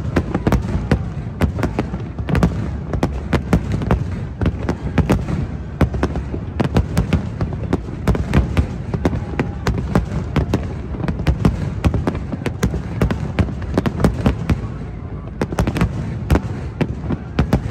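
Aerial fireworks display: a rapid, dense run of bangs and crackles over a continuous low rumble, thinning out briefly near the end before picking up again.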